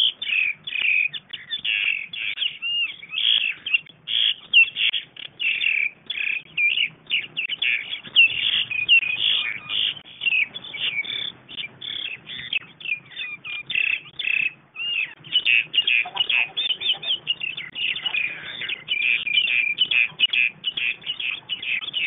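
A group of fighting birds calling: a dense, unbroken chatter of rapid, overlapping chirps.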